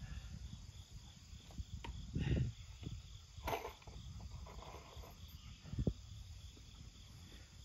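Insects chirping steadily in a even, pulsing rhythm, with a few sudden knocks and thumps from work on the wooden shelter, the loudest a couple of seconds in and near six seconds in.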